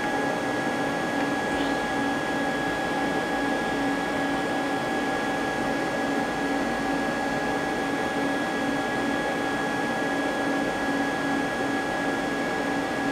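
Steady machine hum with several constant whining tones, the drone of a powered-up Mazak CNC lathe and the machine shop around it.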